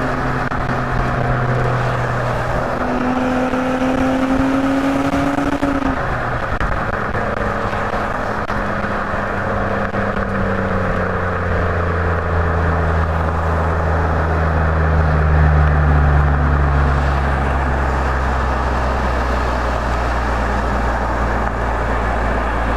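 Exhaust of a 2017 Nissan Maxima's 3.5-litre V6 with the resonator deleted, running while the car drives. The pitch climbs gently, drops about six seconds in, then slowly sinks, with a deep drone building from about halfway through.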